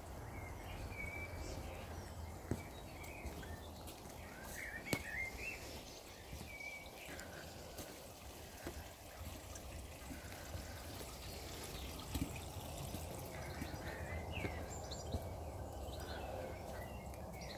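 Quiet garden ambience: a few faint, short bird chirps scattered over a low, steady background hum, with a few soft taps.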